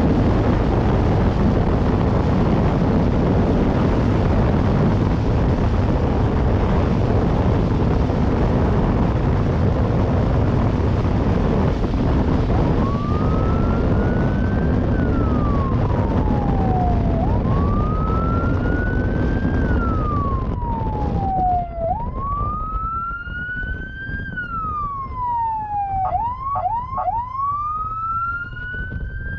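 Strong wind and road rush on a moving motorcycle's camera. From about halfway a police siren starts wailing, rising and falling in slow sweeps about four to five seconds apart, and switches briefly to a quick run of short yelps near the end as the wind noise eases.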